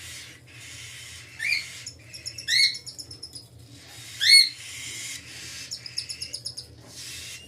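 Cockatiels calling during the feeding of a chick: stretches of hissing rasp, quick runs of ticking chirps, and three sharp rising chirps, the loudest about four seconds in.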